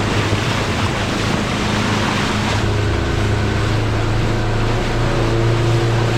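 Motorboat running at speed: a steady, low engine hum under rushing wind and water. The engine note shifts about halfway through, as higher tones join in.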